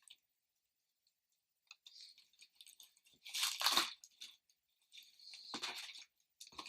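Packaging rustling and crinkling as a package is dug out of a shipping box, in two bursts: a louder one about three and a half seconds in and a softer one near the end.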